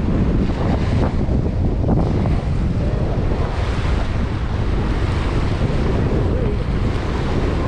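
Steady wind buffeting the microphone, a loud low rumble without a break.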